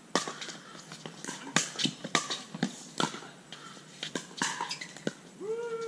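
Pickleball rally: paddles striking the hard plastic ball in a quick back-and-forth, sharp pops about two a second. Near the end a player's voice calls out briefly.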